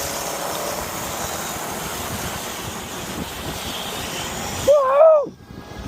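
Steady noise of a vehicle moving along, with a short voice-like cry about five seconds in; right after it the sound briefly cuts out.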